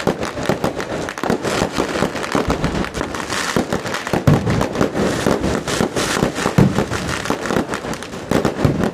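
Fireworks going off in rapid succession: a dense, continuous crackle of many sharp bangs, with a few louder, deeper booms about four, six and six and a half seconds in.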